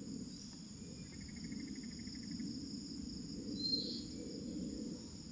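Evening insect chorus: crickets and other insects trilling steadily at several high pitches over a low steady rumble, with a faint rapid ticking call about a second in and a short high chirp a little before four seconds in.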